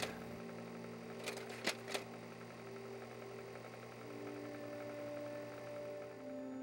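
Quiet background music of long held notes that change pitch a few times, with two faint clicks about a second and a half in.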